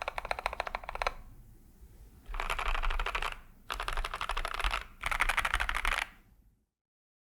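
Typing on a Keychron K8 Pro mechanical keyboard with lubed and filmed Gazzew Boba U4T tactile switches, a steel plate and ASA keycaps. The typing stops about a second in; after a short pause come three bursts of very fast key presses, each about a second long, and the sound cuts off to silence near the end.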